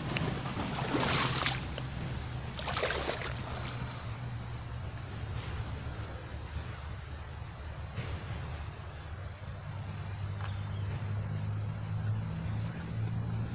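Water splashing as a small fish held by hand is dipped into a flowing river to be released: two short splashes about one and three seconds in, then the steady sound of moving water over a low rumble.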